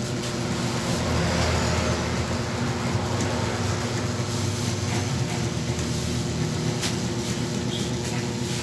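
Corded electric hair clippers running with a steady buzz while cutting short hair.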